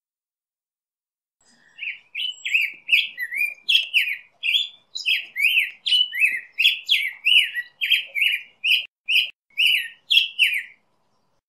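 Black-headed grosbeak singing: one long warbled song of whistled notes that swing up and down in pitch, about two to three notes a second. It starts about a second and a half in and stops shortly before the end.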